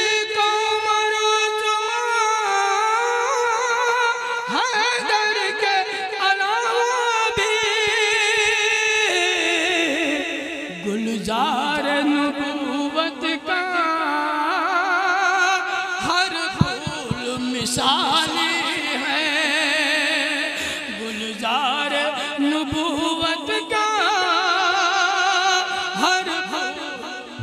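A man singing a naat in a classical vocal style, drawing out long, ornamented notes that waver and glide. The voice is high at first, drops lower about ten seconds in, then climbs again.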